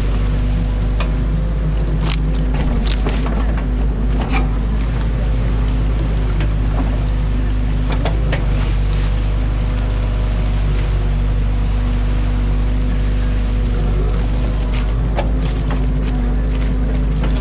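Excavator's diesel engine running steadily, heard from inside the cab, with scattered knocks and clatters as the bucket digs and dumps mud and sticks.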